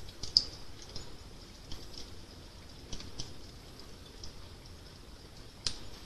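Fire crackling: irregular sharp pops and snaps over a low steady rumble, with a loud pop just under half a second in and another near the end.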